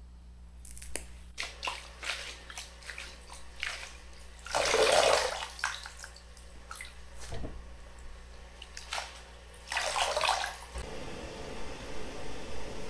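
Light crackling and rustling as fresh mugwort is picked over by hand, then two swishing splashes as the greens are rinsed in a brass bowl of water, with water dripping off them; the first splash is the loudest. Near the end a steady hiss sets in from the pot of water on the lit gas burner.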